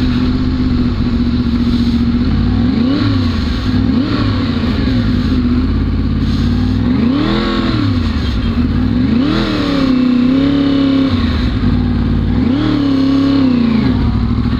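2011 Yamaha R1's crossplane inline-four through a K-Factory titanium exhaust, heard from on board while riding. The engine holds a steady note, then the throttle is opened and closed several times, the revs rising and falling in a series of swells.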